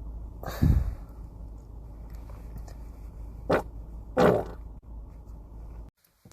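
Three wet farts: a loud one about half a second in, a short one around three and a half seconds, and another loud one just after four seconds.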